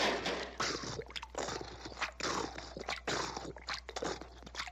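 Cartoon sound effects: about half a dozen short, rough noises at irregular spacing, with no steady tone.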